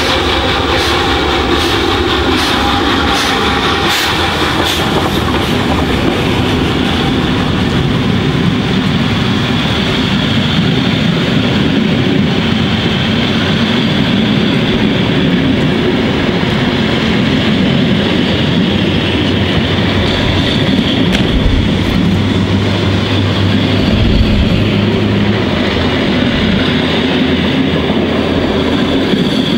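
Finnish Tk3 "Pikku-Jumbo" steam locomotive No. 1136 accelerating away from a standing start, its exhaust beats heard as sharp regular chuffs for the first few seconds as it passes. Then its passenger coaches roll past close by with a steady rumble and clatter of wheels on the rails.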